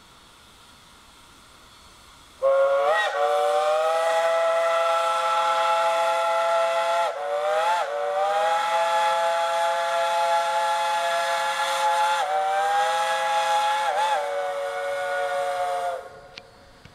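Steam locomotive's chime whistle, sounding several notes at once, blown in three long blasts with only short breaks between them, each blast opening with a brief upward slur as the valve opens.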